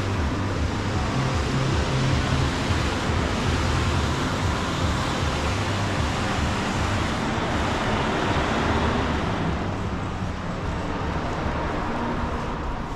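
Pachinko parlour din spilling from an open entrance: a loud, steady wash of noise from the machines. It swells in the middle and fades in the last few seconds as the parlour is passed.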